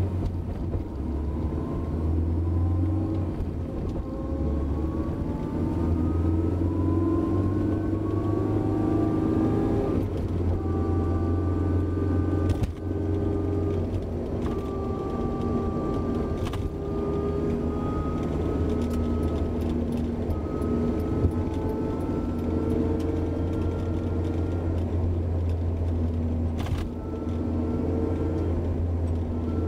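Honda S2000 under way, its differential gears whining: a thin whine rises slowly in pitch over several seconds, again and again, over a steady low engine and road rumble. The whine is the car's abnormal differential noise. A few short knocks are heard, one about twelve seconds in.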